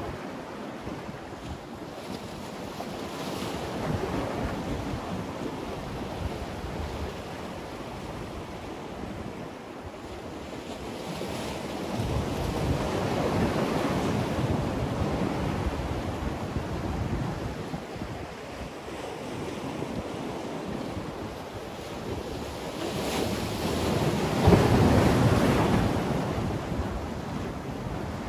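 Sea waves washing and breaking against concrete breakwater blocks, with wind on the microphone. The surf swells and falls back in three surges, the biggest near the end.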